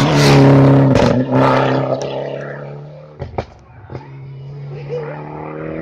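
Rally car engine at full throttle passing close by. The engine note is loudest in the first second and fades away over the next few seconds, with a few sharp cracks. A fainter engine note comes back near the end.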